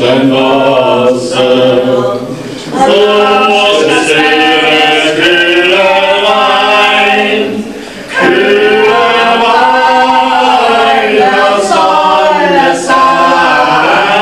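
Several voices, with men on microphones over a PA, singing a song together without instruments, in long held phrases. There are short breaths between phrases about three and eight seconds in.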